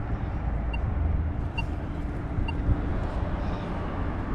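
A road vehicle's steady low engine and road rumble on the nearby street, with a faint hum that fades about three seconds in.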